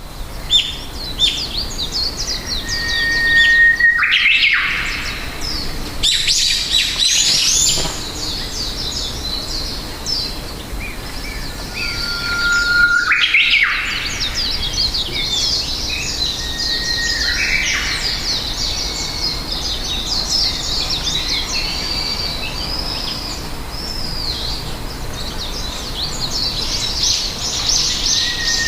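Many small birds chirping and twittering together in quick high notes. Three times a held whistled note sounds and runs into a brief rushing surge.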